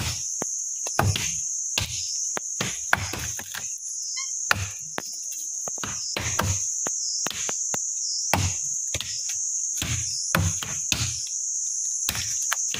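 Machete chopping into saplings and brush, with sharp chops coming irregularly about one or two a second, over a steady high drone of insects.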